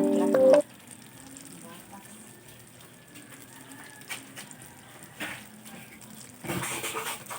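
Chiming background music ends about half a second in, leaving a faint steady sizzle of food frying in a pan. There are a couple of light knocks, and louder sizzling and clatter come near the end.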